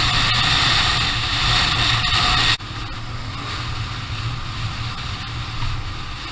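Motorcycle engine running steadily under loud wind noise on the rider's microphone while riding. About two and a half seconds in, the whole sound drops suddenly to a quieter mix of engine hum and wind.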